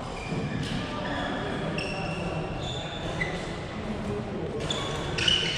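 Badminton shoes squeaking on the court floor during a rally, with a few sharp racket-on-shuttle hits and a murmur of voices.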